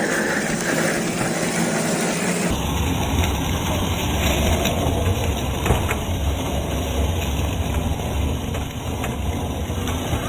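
Steady rough outdoor noise of a 1:10 RC rock crawler being driven off-road, with no clear motor whine standing out. About two and a half seconds in the sound changes abruptly to a deeper rumble.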